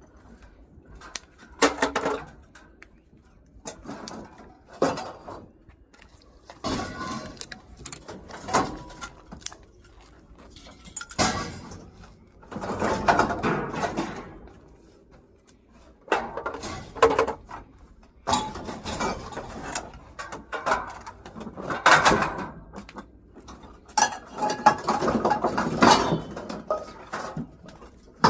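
Pieces of scrap metal clanking and rattling as they are handled and sorted, in irregular bouts of knocks, with two longer stretches of rummaging clatter.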